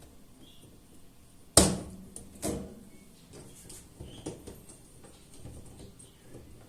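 Upper basket of an Arçelik dishwasher being fitted onto its rails: a sharp knock with a short ring about one and a half seconds in, a second knock a second later, then a few lighter clicks.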